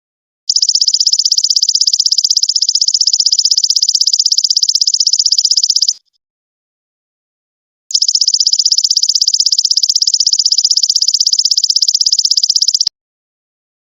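Golden locust (belalang emas) singing: two long, rapidly pulsing high-pitched trills of about five seconds each, separated by a couple of seconds of dead silence.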